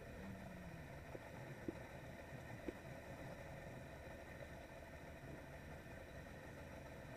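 Polaris SL 900 personal watercraft's two-stroke engine running at low no-wake speed, a faint steady hum. Two brief clicks come about a second apart early on.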